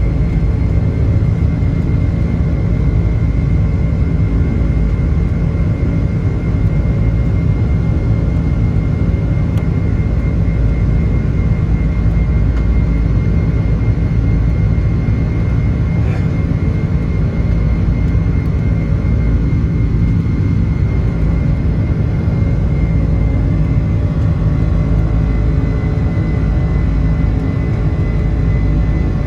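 Boeing 747-400 in flight heard from the cabin: a steady, loud low rumble of its four Pratt & Whitney PW4056 engines and airflow, with a faint steady whine, unchanging throughout.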